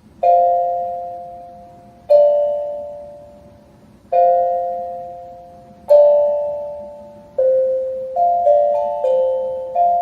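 Short intro music with a bell-like tone: four chords struck about two seconds apart, each ringing out and fading, then a quicker run of notes near the end.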